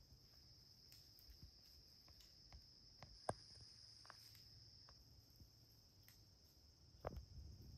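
Faint, steady high-pitched drone of insects such as crickets. Scattered faint ticks and rustles in the leaf litter, with one sharp snap about three seconds in and a brief rustle near the end.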